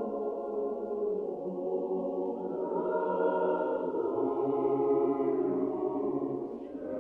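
Choir singing slow, held chords in the manner of Orthodox church chant, with a change of chord about a third of the way in and a brief dip in the voices near the end.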